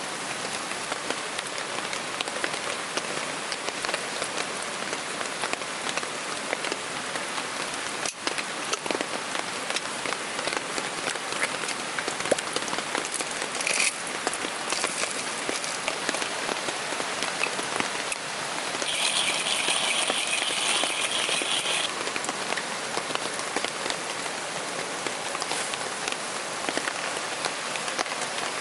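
Heavy downpour of rain falling steadily, a dense hiss of countless drop hits. A louder, higher hiss rises for about three seconds two-thirds of the way through.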